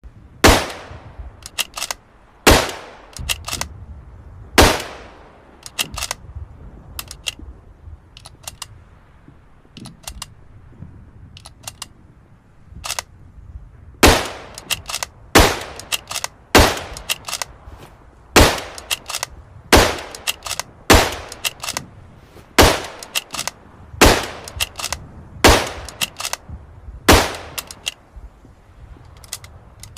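Lee-Enfield Mk III bolt-action rifle (.303 British) firing a string of single shots, with quick clicks of the bolt being worked between them. Three shots come near the start, then a few seconds of only clicking, then a steady run of about ten shots roughly a second and a half apart.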